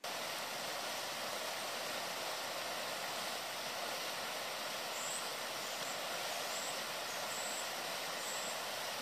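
Whitewater rapids of a mountain river rushing over rocks, a steady, unbroken rush of water.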